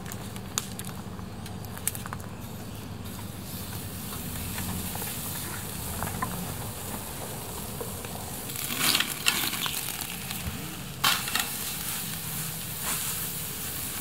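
Beef rump steak sizzling on the grate of a charcoal grill, a steady hiss of searing meat, broken by several sharp clicks and knocks in the second half.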